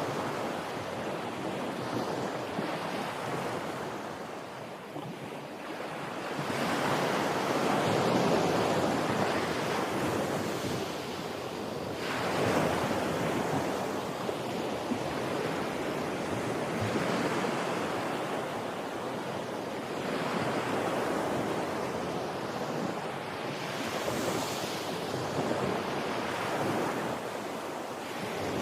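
Ocean surf: a continuous rush of waves that swells and ebbs, growing louder as new waves come in about a quarter of the way in, near the middle, and again near the end.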